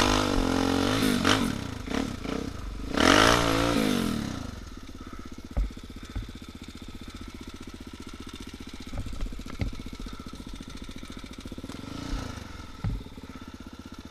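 Enduro motorcycle engine revved hard twice, the pitch rising and falling each time, then settling to a steady idle about four and a half seconds in, with a few light knocks over the idle.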